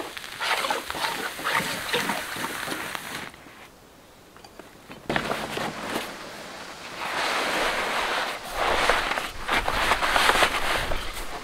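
Plastic sheeting rustling as it is unrolled and handled and pressed into place, in irregular bursts with a short quiet pause near the middle.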